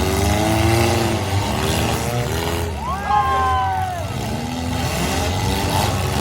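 Engines of four-cylinder demolition derby cars running and revving, their pitch rising and falling as the cars accelerate and back off.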